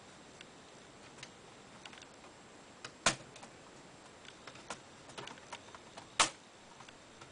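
Small screwdriver prying along the edge of an Acer Aspire V5 laptop keyboard: scattered light plastic clicks and ticks, with two sharper snaps, one about three seconds in and one about six seconds in, as the keyboard's retaining tabs pop loose.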